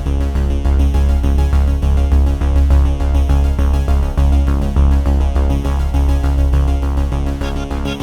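Electronic background music with a synthesizer and a steady pulsing bass.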